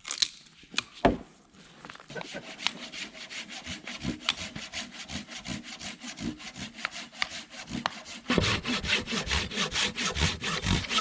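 Hand saw cutting through a piece of wood, probably firewood, in quick even strokes of about four or five a second, growing louder about eight seconds in. A few sharp knocks come in the first second.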